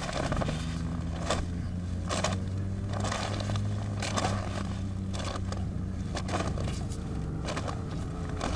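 An engine idling steadily with a low hum, with irregular knocks and scrapes over it every second or so.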